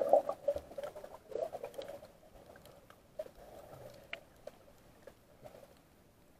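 Heard underwater: muffled splashing and bubbling from a snorkeler's kicking legs, busiest in the first two seconds and then fading, with scattered sharp clicks throughout.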